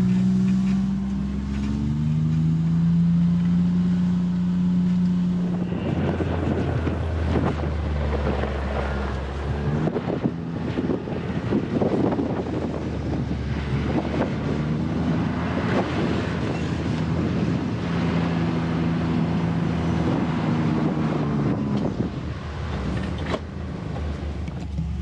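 Heavy machinery with its engine running, its pitch holding steady for a few seconds and then rising and falling. From about six seconds in until shortly before the end, a dense rumbling clatter of many small knocks runs under the engine.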